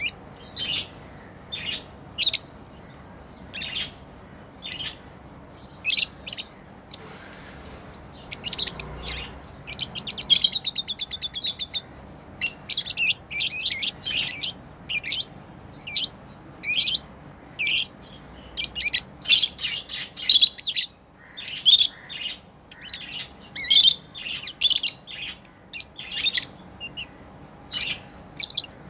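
Pet lovebirds chirping: a string of short, sharp, high chirps, spaced out at first and coming thick and fast in the second half, with a quick buzzy trill about ten seconds in.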